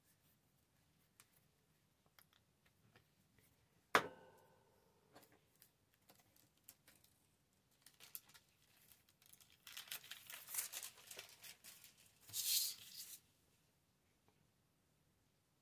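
Paper being handled and torn at a work table: small clicks and one sharp knock with a short ring about four seconds in, then several seconds of rustling and tearing paper, loudest just before it stops.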